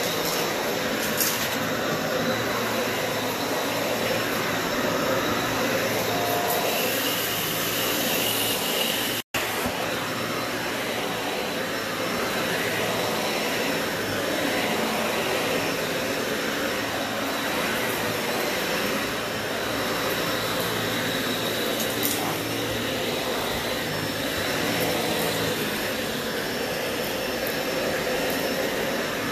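Bagless upright ball vacuum cleaner running steadily while pushed over carpet, with a few faint ticks. The sound cuts out for an instant about nine seconds in.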